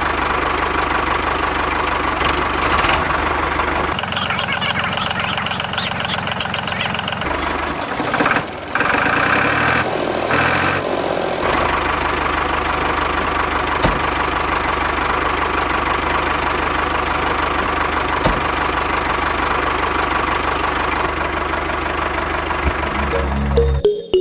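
Small engine running steadily, with its sound changing abruptly a few times where the footage is cut.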